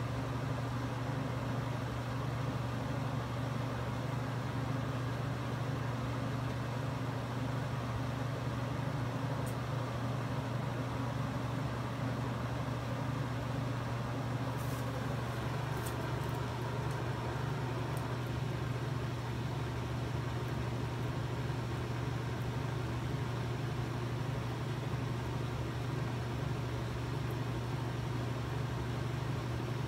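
A steady low mechanical hum, like a fan or air conditioner running, with a few faint high clicks about halfway through.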